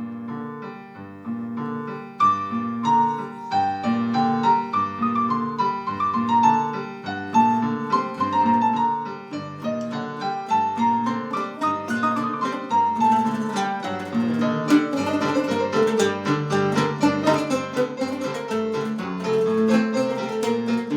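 Solo piano playing a melody of falling phrases over repeated low notes, becoming fuller and busier about halfway through.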